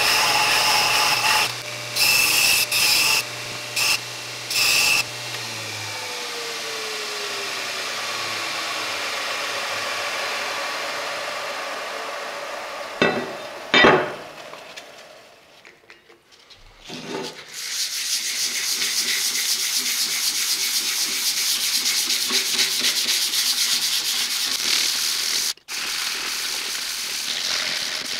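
Small bench belt grinder grinding the steel cleaver blade in short loud bursts over a steady motor hum. The motor then winds down with a falling whine. After a pause, sandpaper is rubbed by hand back and forth over the steel blade, a steady scratchy sanding sound.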